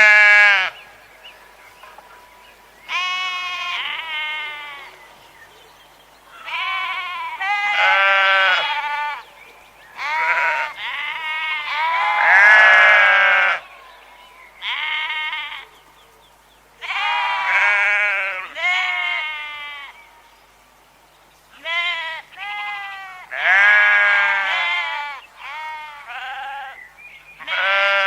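Sheep bleating, about a dozen wavering calls in quick clusters with short pauses between them.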